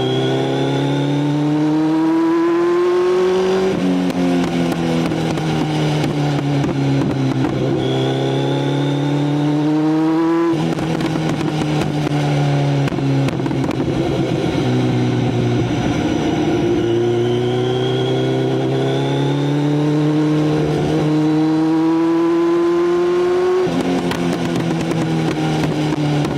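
Motorcycle engine running under load, its pitch climbing steadily for several seconds at a time and then dropping sharply, about four times.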